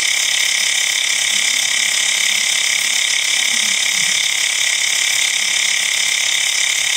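Xiaomi Mi Portable Electric Air Compressor running steadily while inflating a tyre, a loud, even mechanical buzz that does not change. The tyre is at about 33 psi, the preset at which its auto cut-off should stop it.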